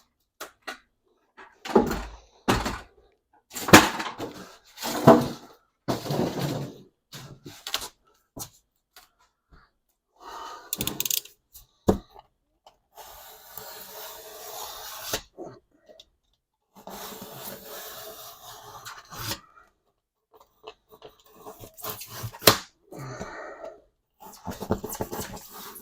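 Scattered knocks and thuds, then two scraping stretches of about two seconds each, from a plywood-and-foam board edge being worked on by hand.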